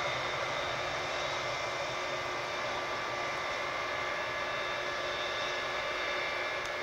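Boeing 707's four jet engines running steadily as the aircraft rolls along the runway: an even rush of jet noise with thin, high whining tones over it.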